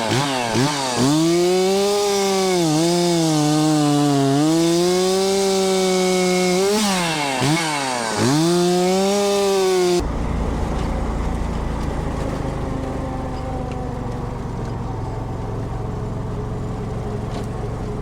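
Stihl 036 Pro two-stroke chainsaw running at high revs, its pitch dropping and climbing back several times as it is throttled. About ten seconds in it cuts off suddenly, giving way to a quieter, steady low vehicle-engine rumble.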